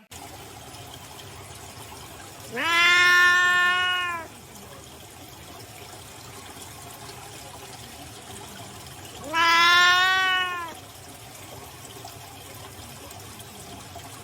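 A cat meowing twice, two long drawn-out meows several seconds apart, over a steady background hiss.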